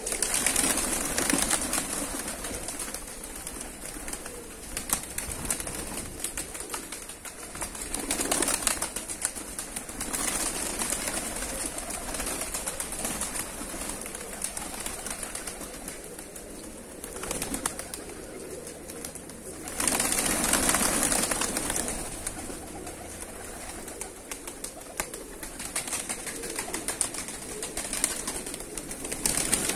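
Flock of fighting pigeons flapping and clapping their wings as they take off and fly around the loft: a rustling wing noise full of sharp claps, swelling in several louder bursts.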